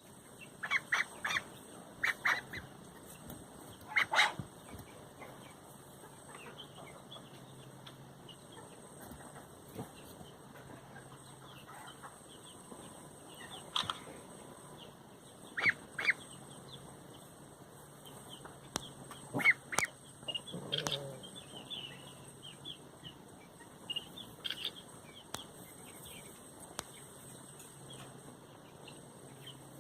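Three-week-old ducklings peeping: many short, high chirps scattered throughout, with several louder sharp calls standing out.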